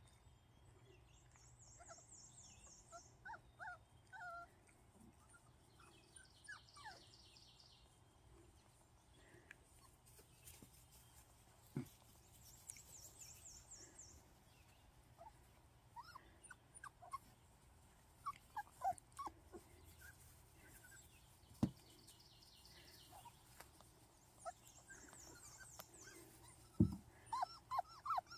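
Young Miniature American Shepherd puppies, about five weeks old, giving short high yips and whimpers as they play, scattered at first and coming thicker near the end. A rapid high trill comes and goes in the background, and a few sharp knocks stand out.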